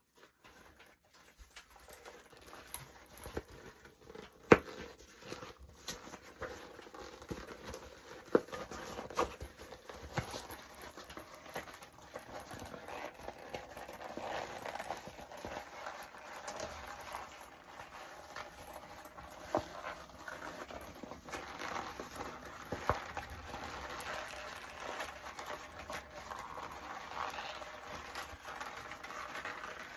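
Natural leather bag being turned inside out by hand: the leather creaks and rustles as it is bent and folded, with occasional sharp clicks and crackles.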